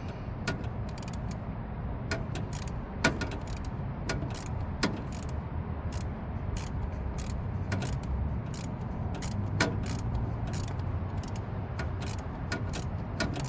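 Irregular sharp metallic clicks and clinks of hand tools working the thermostat housing, a few each second, over a steady low rumble.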